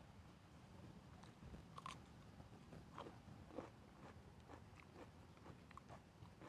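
A person biting and chewing crunchy food, with a few sharper crunches about two, three and three and a half seconds in, then softer chewing clicks.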